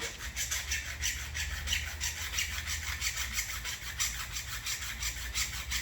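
Hand file rasping back and forth on the steel fingers of a cheap multi-tool's chain breaker, in quick, even strokes, filing them thinner to fit a narrow 11-speed chain.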